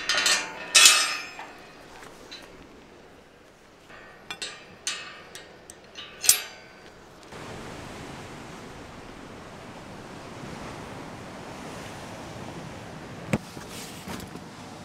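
Metal latch and bars of a galvanised field gate clinking and clanking as it is opened and shut: a run of sharp metallic knocks, loudest about a second in and again around five to six seconds. Then a steady rush of waves breaking on a breakwater, with a single click near the end.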